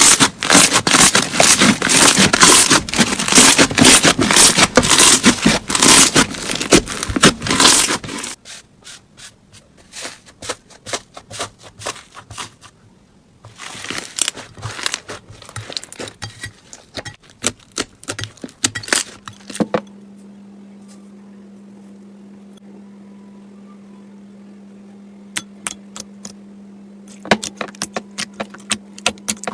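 Slime being squeezed and pressed by hand, giving a dense run of crackling, popping clicks, then sparser pops. A steady low hum comes in about two-thirds of the way through.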